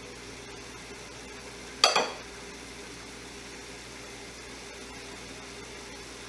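A table knife clinks once against a ceramic plate about two seconds in, with a short ring, while slicing soft boiled cornmeal dumplings. A faint steady hum runs underneath.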